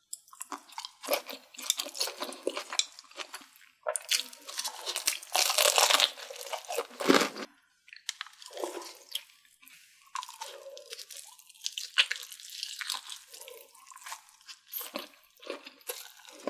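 Close-miked mukbang eating sounds: a woman biting and chewing Vietnamese blood sausage and offal, with wet mouth clicks in irregular bursts. The loudest stretch is about four to seven seconds in, with a brief pause just before eight seconds.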